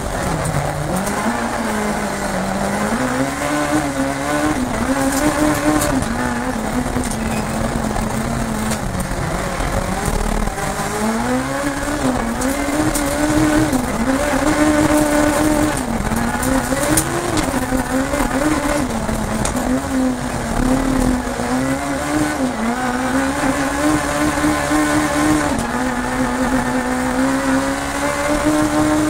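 Alfa Romeo MiTo rallycross car's engine at racing speed, heard from inside the cockpit, its pitch climbing and dropping over and over as the driver accelerates and lifts through the lap.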